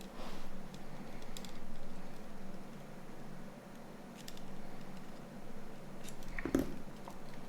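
Small clicks and taps of a Nokia 9210's display assembly being handled as its metal retaining tabs are worked free, with a louder knock about six and a half seconds in.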